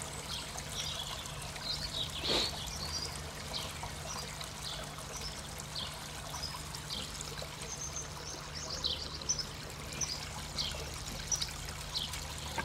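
Water pouring from a pipe spout into a garden pond, a steady trickling splash, under a steady low hum. Many short high chirps come and go, more of them in the second half, with one louder sharp sound about two seconds in.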